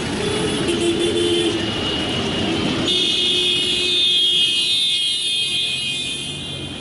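Busy city road traffic heard from a moving taxi, with engines running and tyre noise. From about three seconds in, a steady high-pitched tone holds for about three and a half seconds over the traffic.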